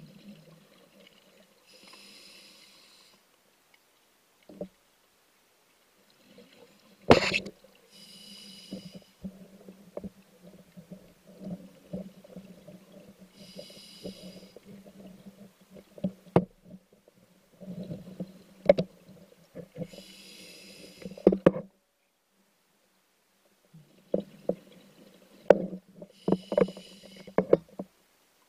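Underwater scuba diver breathing through a regulator: a hiss about every six seconds, and a low bubbling rumble between breaths. Several sharp knocks of gear against rock, the loudest about seven seconds in.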